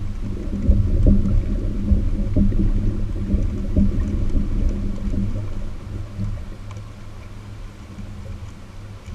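Low rumble and steady hum of a kayak moving under power, with irregular light knocks as trotline is paid out from a hand-held reel; the knocks and rumble ease off a little over halfway through.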